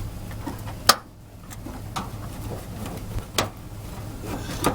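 Three sharp clicks or knocks from hand tools and metal parts being worked on the car's hood and fender, the loudest about a second in, over a steady low hum.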